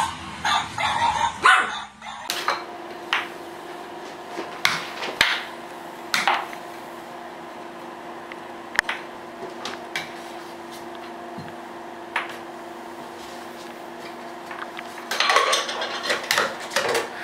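Yapping for the first two seconds, then an air hockey table's blower humming steadily, with scattered sharp plastic clacks as a cat bats at the puck and a flurry of clatter near the end.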